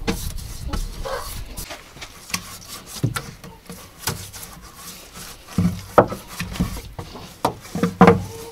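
Small paintbrush scrubbing lime whitewash onto rough wooden boards of a nest box: irregular scraping brush strokes, with the brush knocking against the wood now and then, most loudly near the end.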